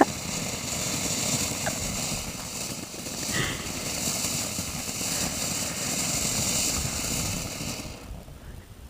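Small fountain-type firework hissing steadily as it sprays sparks, then dying out near the end.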